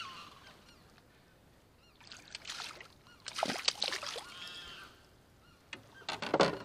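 A hooked bass thrashing and splashing at the water's surface beside a kayak as it is landed. The splashing comes in bursts, loudest in the middle and again near the end, with short pitched sounds mixed in.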